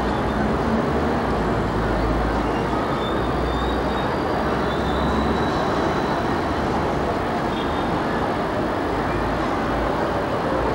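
Street traffic noise around Hong Kong double-deck electric trams moving on a curve of track: a steady rumble and hiss. The deep part of the rumble eases about halfway through.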